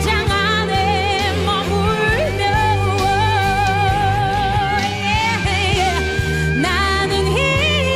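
Female vocalist singing a Korean pop ballad live, holding long notes with strong vibrato over an instrumental accompaniment with a steady bass line.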